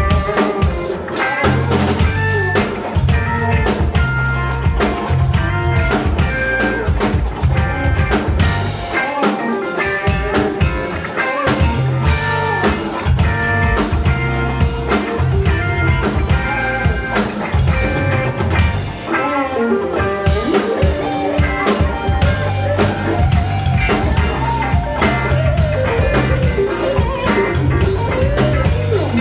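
Live rock band playing: electric guitar over bass and drum kit, with a steady beat.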